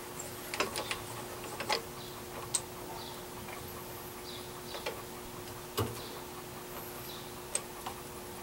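Irregular metal clicks and taps as a drill-press vise and a metal bracket are shifted and lined up under the drill bit, over a faint steady hum.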